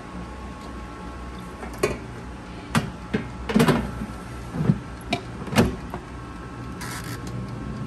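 Air fryer basket and drawer knocking and clattering as the loaded basket is slid into the air fryer and the drawer is pushed shut: about six sharp knocks over a steady low hum, the last loud one as the drawer closes.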